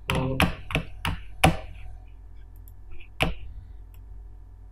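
Clicks of a computer mouse or keyboard: five sharp clicks in quick succession, then a single click about three seconds in.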